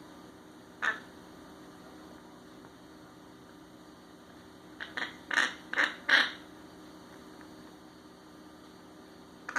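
Short, sharp animal calls: one about a second in, then a quick run of about five between five and six seconds in, over a steady low hum.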